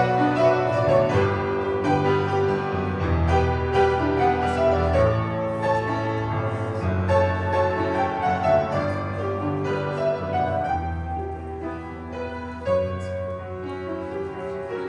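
Instrumental music led by piano, with sustained low bass notes under slow-moving chords, softening slightly near the end.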